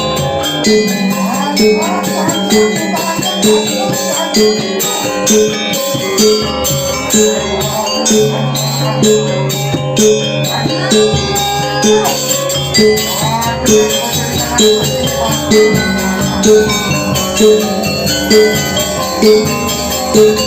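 Music with a pitched percussion stroke repeating about once a second over layered pitched and bell-like parts, with a held low note partway through.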